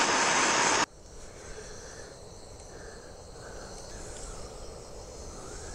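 Handheld gas torch burning with a loud, even hiss that shuts off abruptly about a second in. Afterwards only a faint background with insects chirping.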